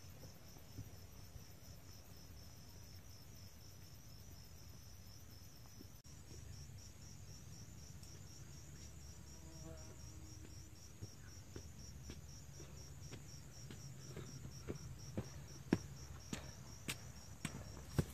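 Insects chirping in a steady, evenly pulsing rhythm, high-pitched. In the second half, footsteps on stone trail steps come closer and louder, the last few sharp steps the loudest sounds, as a walker passes close by.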